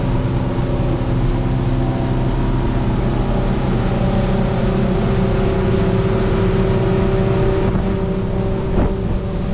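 Outboard engine running steadily at cruising speed as the boat runs across open water, with wind and water rushing past. There is a brief thump near the end.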